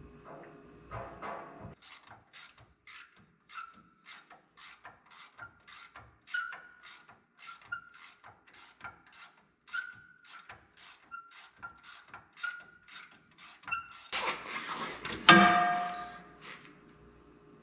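Hand ratchet clicking in a steady rhythm, about three clicks a second, as the bolts holding the C-clip eliminator to the Chevy 12-bolt axle housing are run down. Near the end comes a louder metal clatter.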